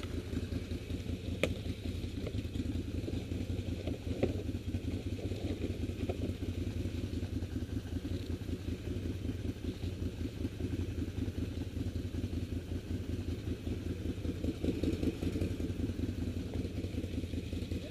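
Quad (ATV) engine running at low revs with an even pulse, getting a little louder near the end. A couple of sharp knocks come in the first few seconds.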